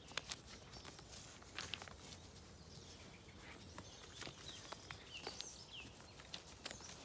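Faint, scattered taps and knocks of lambs' hooves stepping on a wooden beam and gravel, with a few short bird chirps about five seconds in.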